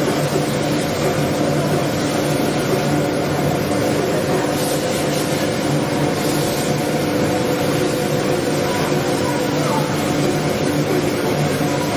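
Steady drone of workshop machinery: a constant low hum with evenly spaced higher tones over a hiss of air, unchanging throughout.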